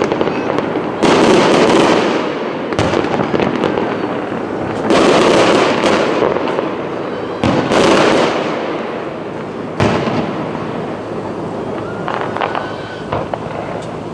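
Aerial fireworks shells bursting overhead at a fireworks display: about six sudden bursts, each followed by a fading tail, with fainter bursts near the end.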